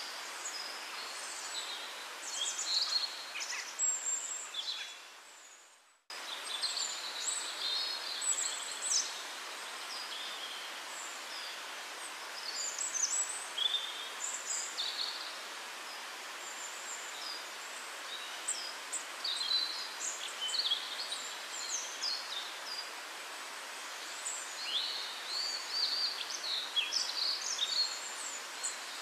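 Small birds chirping and twittering in quick short notes over a steady outdoor hiss. The sound fades out about six seconds in and cuts back in abruptly.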